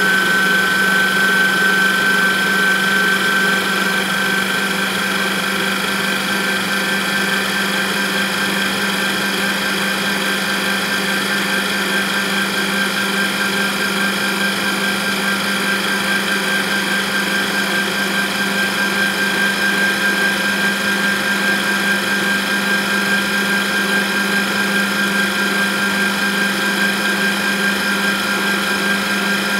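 Stand mixer running steadily at high speed, its motor whine holding one pitch, whisking eggs and sugar into a foamy batter in a stainless steel bowl.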